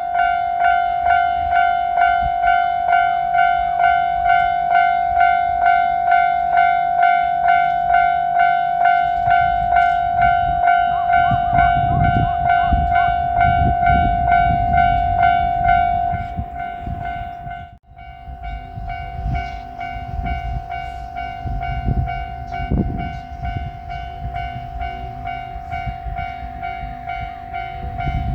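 Japanese railway level-crossing warning bell ringing its steady electronic 'kan-kan' ding, about two strikes a second, while a train rumbles past from about eleven seconds in. Near two-thirds of the way through the sound briefly drops out. Then the bell tone and the train's rumble and clanking carry on, quieter.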